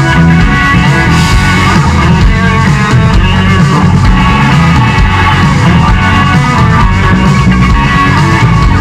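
Live rock band playing an instrumental passage without vocals: drums, bass guitar, electric guitar and keyboards, loud and steady.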